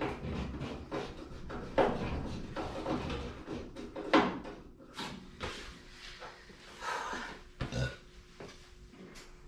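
Irregular knocks and clatter of a truck's metal header panel and its bolts being handled and fitted, with the sharpest knocks about two and four seconds in.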